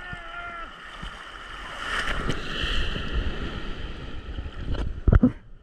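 Sea water sloshing and a small wave washing over a camera at the water surface, with wind on the microphone. The wash swells about two seconds in. A few sharp knocks near the end are louder than anything else.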